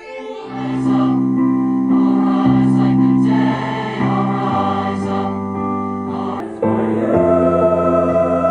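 A choir singing slow held chords. About six and a half seconds in the sound breaks off abruptly and a louder sung passage begins.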